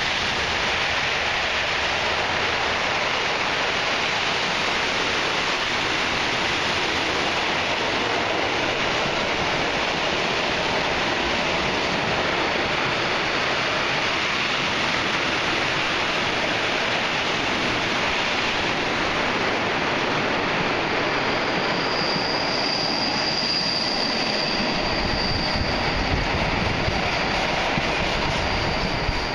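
Freight train of container and tank-container wagons rolling past: a steady rush and rumble of wheels on rails. A thin high squeal comes in about two-thirds of the way through, and a deeper rumble rises near the end as the last wagon goes by.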